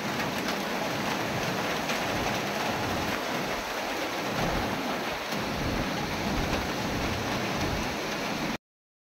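Heavy tropical-storm rain pouring steadily, with gusty wind buffeting the microphone in uneven low rumbles. The sound cuts off abruptly near the end.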